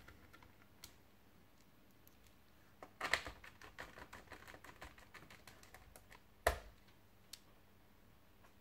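Light plastic clicks and taps from a Lenovo ThinkPad T430s laptop's case being handled on a workbench, with a cluster of rattling taps about three seconds in and one louder knock about six and a half seconds in.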